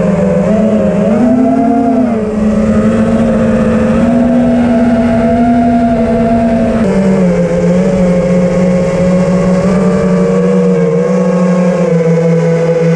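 An FPV racing quadcopter's brushless motors and propellers in flight, recorded by the camera on board: a loud steady hum whose pitch rises briefly about a second and a half in and steps down at about seven seconds as the throttle changes.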